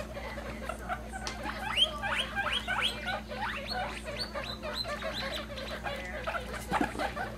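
Guinea pigs squeaking: a rapid run of short rising squeaks, several a second, busiest in the middle stretch.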